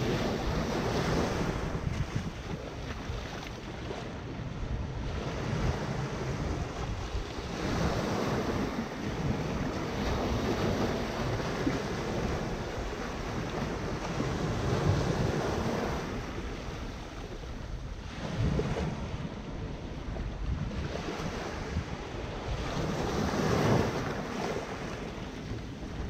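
Small sea waves breaking on a sandy shore and washing against a rock breakwater, the surf swelling and easing every few seconds. A low wind rumble on the microphone runs underneath.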